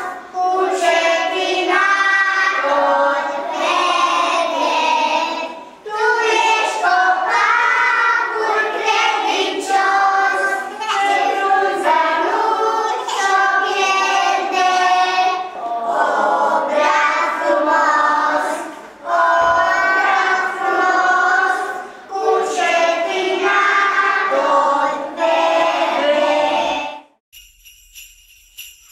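A group of young children singing a Romanian Christmas carol (colindă) together, in phrases with short breaks between them. About 27 seconds in the singing stops abruptly and high, rhythmic jingle bells come in.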